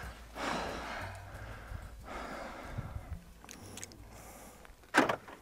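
A person breathing hard and out of breath after climbing a long, steep flight of stairs, with soft heavy breaths and a sharper, louder breath near the end.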